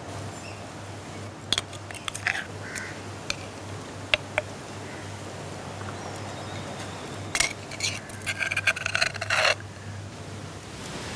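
Metal spoon clinking and scraping against a stone mortar and pestle and a clay dish as crushed shallots are scooped out. Scattered single clicks come first, then a denser run of scraping and clinking about seven seconds in.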